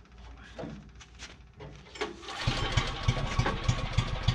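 Portable generator's small engine starting about two and a half seconds in and running on with a rapid, uneven pulsing.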